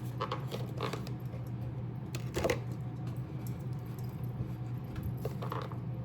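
A few light clicks and small knocks of cooking things being handled and moved aside, the clearest about two and a half seconds in and a couple more near the end, over a steady low hum.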